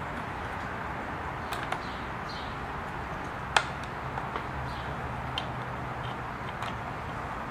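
Scattered small metal clicks and taps from hands fitting a gear into the lower mechanism of a Singer Stylist 522 sewing machine, with one sharper click about three and a half seconds in, over a steady background noise.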